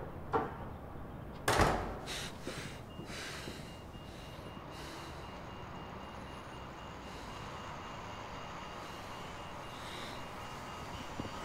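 A sharp knock, then a louder thump about one and a half seconds in and a few lighter knocks, followed by a steady low background hum with a faint high steady tone.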